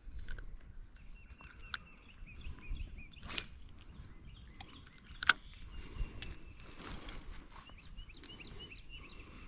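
Small birds chirping in short repeated notes over a steady outdoor background, broken by a few sharp clicks, the loudest about five seconds in, and a couple of brief swishing rustles.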